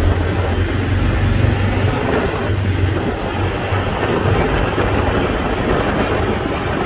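ATV engine running at a steady cruising speed, with rumble and wind noise from riding along.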